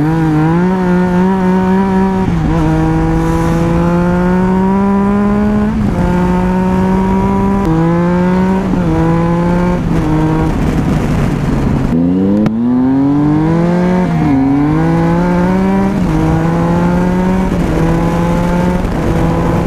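Triumph 675 motorcycle's three-cylinder engine through an aftermarket exhaust, pulling hard through the gears. The pitch climbs in each gear and drops at each upshift. About halfway through it slows with the pitch falling, then revs up and pulls through the gears again, over wind rush.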